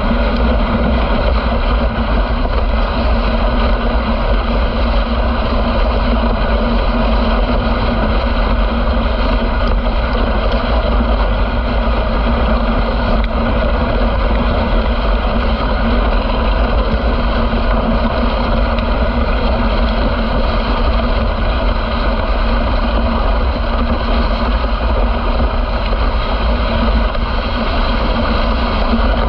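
Dog sled running over a packed, groomed snow trail: a steady, loud rushing noise of the runners sliding on snow, with a strong low rumble.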